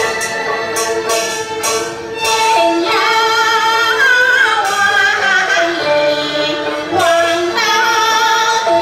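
A woman singing a solo with strong vibrato, accompanied by a small ensemble of violin and flute. The instruments play held notes alone at first, and her voice comes in about two and a half seconds in.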